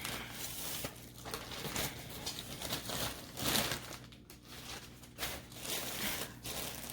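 Shopping bag crinkling and rustling in irregular bursts as skeins of yarn are pulled out of it and handled.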